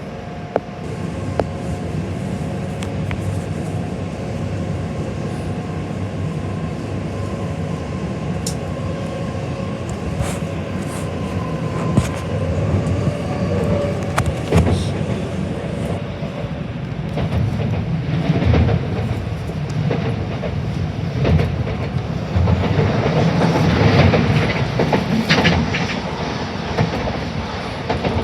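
Shinkansen train running, heard from inside the passenger car: a steady rumble of wheels on rail with scattered clicks and knocks. It grows louder and rougher in the second half.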